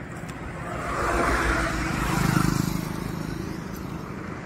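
A road vehicle passing close by: engine and tyre noise swell, are loudest about two seconds in, then fade away.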